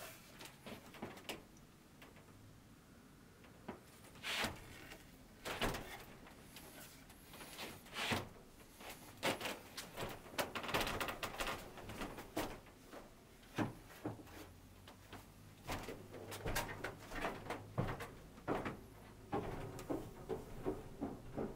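Scattered, irregular knocks, clunks and rustles of a person moving about a small attic room and handling objects, including a framed canvas.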